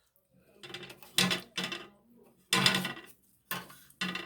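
Hard plastic remote control and its parts knocking and clattering as they are handled in a sink, about six short knocks at uneven intervals.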